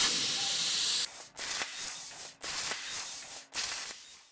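CNC plasma cutter torch hissing as it cuts sheet steel: a steady hiss for about a second, then several short bursts that start and stop abruptly.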